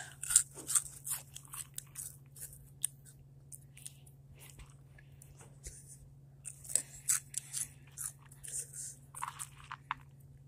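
Hot chips being crunched and chewed close to the microphone: bursts of crisp crunches in the first few seconds and again in the second half, sparser in between, over a steady low hum.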